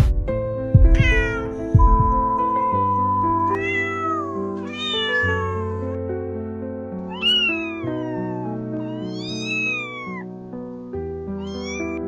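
A cat meowing about five times, each call bending up and then falling, over background music with held notes. Three deep thuds come in the first two seconds.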